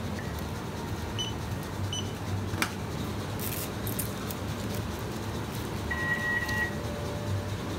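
Steady low hum of shop background noise, with two short high electronic beeps in the first two seconds and a longer beep about six seconds in. Brief crinkling of a plastic riceball wrapper around the middle.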